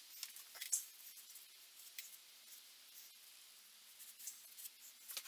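Faint handling sounds: light rustles and small clicks as gloved hands work at a wooden table's leg joint, with one sharper click a little under a second in, then a cloth rag rubbing over the joint near the end.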